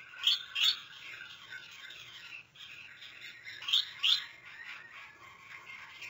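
Gouldian finches chirping and twittering in a steady high chatter. Two loud, sharp chirps come close together near the start, and another such pair comes about two-thirds of the way through.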